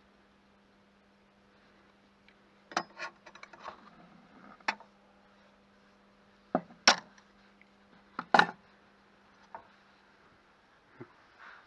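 A 3/8-inch cold-rolled steel bar and a digital caliper knocking and clicking against a wooden workbench as they are handled. Short sharp knocks come in small clusters, the loudest about seven and eight and a half seconds in.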